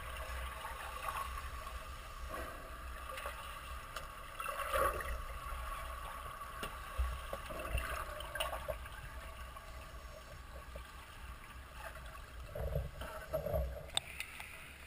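Muffled underwater sound of a swimming pool picked up by a submerged camera: a steady low rumble with faint clicks and brief swishes of moving water, a little stronger a couple of seconds before the end.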